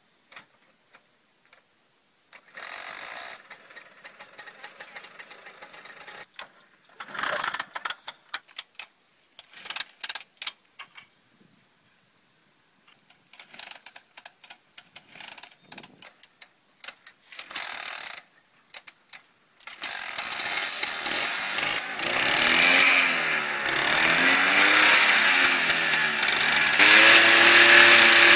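Classic Lambretta scooter's single-cylinder two-stroke engine being kickstarted: short bursts of noise from the first attempts, then about twenty seconds in the engine catches and runs loudly, revved up and down several times.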